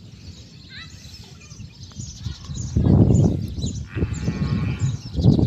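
A goat bleats once, about four seconds in. Gusts of wind rumble on the microphone, loudest around three seconds in, and small birds chirp throughout.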